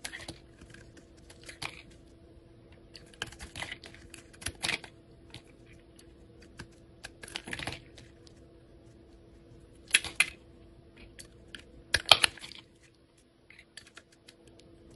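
Utility knife blade shaving and slicing a bar of soap, giving short, crisp, crunchy scrapes in irregular strokes, with a few louder strokes in the second half.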